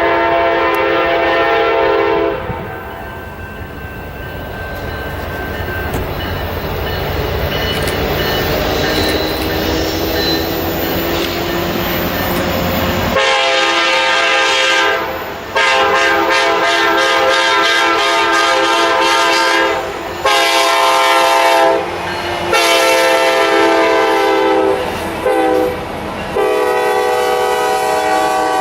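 Norfolk Southern diesel locomotive's air horn blowing a chord that stops about two seconds in. A low rumble builds as the locomotives pass. From about halfway the horn sounds again in a string of long blasts with short breaks, over the clickety-clack of railcar wheels on the rail joints.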